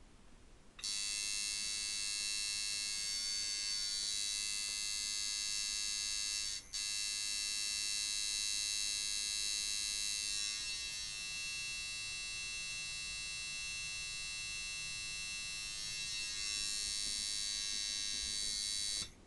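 Aaron Cain autoloader coil tattoo machine with 8-layer Wesley Verity coils running at 3 volts. It gives a steady, high buzz, tuned as a packer with a medium to fairly hard hit. The buzz starts about a second in, cuts out for a moment near seven seconds, and stops just before the end.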